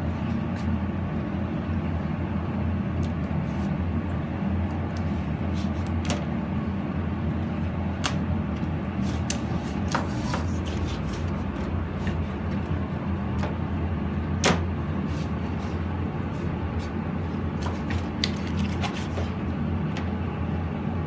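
Large knives cutting raw chicken on plastic cutting boards, with scattered sharp taps of the blade on the board. A steady low hum runs underneath.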